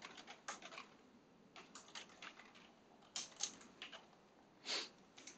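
Computer keyboard typing, quiet, in three short runs of keystrokes, with one louder knock near the end.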